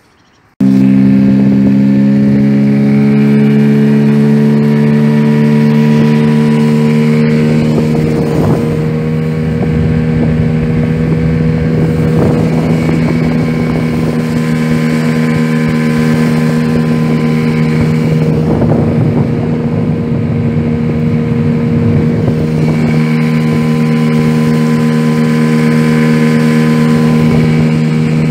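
Tohatsu 9.8 hp outboard motor running at speed, driving an inflatable boat along a river. It holds a steady engine note that rises slightly in the first few seconds, with wind and water rush underneath.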